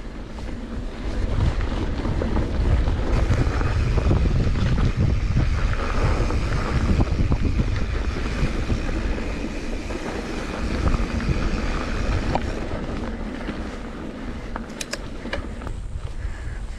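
A mountain bike descending a dirt downhill trail at speed: wind buffeting the microphone over the rumble of knobby tyres rolling on dirt. It swells about a second in and eases after twelve seconds, with a few sharp clicks of the bike rattling near the end.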